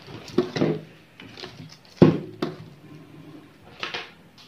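Plastic-bagged Epson 003 ink bottles set down one after another on a tabletop, with several light knocks and the plastic bags rustling. The loudest knock comes about two seconds in.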